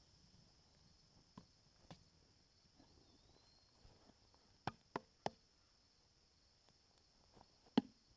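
Quiet, with a few faint, short knocks and clicks: three in quick succession around the middle and a sharper one near the end.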